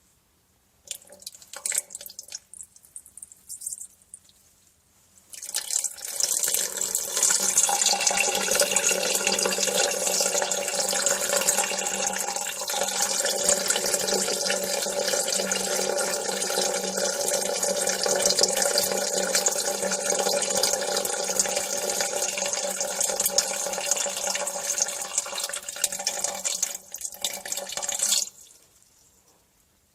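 A person urinating: a few short spurts, then a steady splashing stream for a little over twenty seconds, ending in a few brief dribbles.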